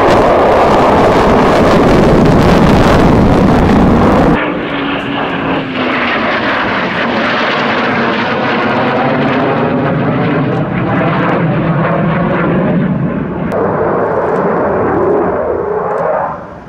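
Fighter jet engine noise. It opens with a Sukhoi Su-57's engines, very loud. About four seconds in the sound changes abruptly to a Eurofighter Typhoon's engines, a little quieter, with a tone that slides down in pitch. The noise falls away sharply just before the end.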